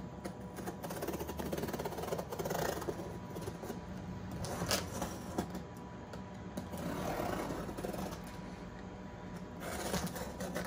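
Utility knife slitting the packing tape along the top of a cardboard box, with irregular scratching and rasping of blade on tape and cardboard and a sharp click about halfway through, over a steady faint hum.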